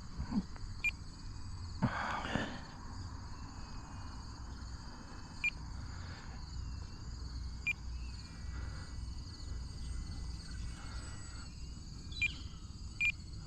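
Steady chorus of crickets. Short, high beeps sound five times at uneven intervals, most likely the Spektrum NX8 radio transmitter's alert at half throttle.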